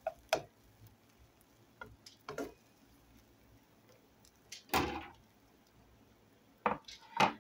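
A few separate knocks and clicks from handling cookware: a plastic slotted spatula against a nonstick frying pan, with one louder, fuller thump a little before the middle.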